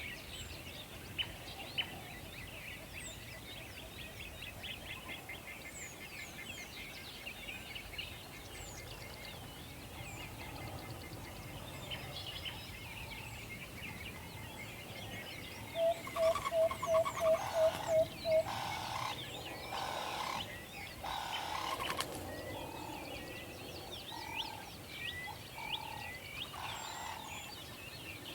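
Night forest ambience: small birds chirp throughout, and about halfway in an owl gives a quick run of about eight hooting notes, the loudest sound, followed by a few harsher, rasping calls.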